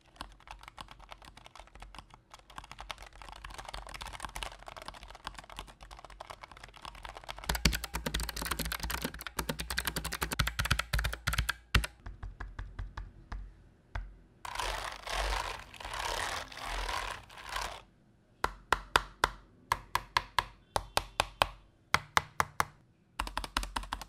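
Logitech G815 low-profile mechanical keyboard with GL Linear switches being typed on. Quiet, fast key clatter gives way to louder rapid runs partway through. Near the end, single keys are pressed one at a time, about two a second.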